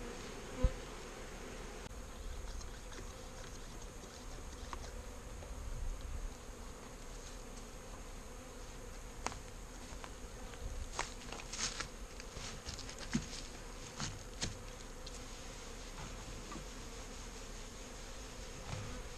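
Honeybees buzzing around the hives in a steady hum, with a sharp click near the start and a scattered run of short clicks and knocks in the middle.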